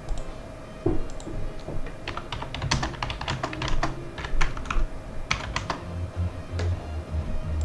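Computer keyboard keys tapping in irregular clusters of quick clicks, over a faint steady hum.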